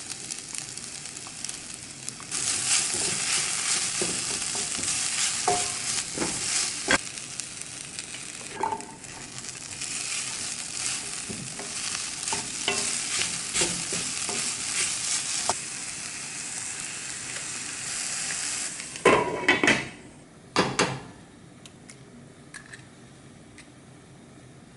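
Rice, kimchi and vegetables sizzling in a frying pan while a wooden spatula stirs and scrapes it, with scattered clicks of the spatula on the pan. The sizzle gets louder about two seconds in. A few loud knocks come near the end, after which the sizzling drops away.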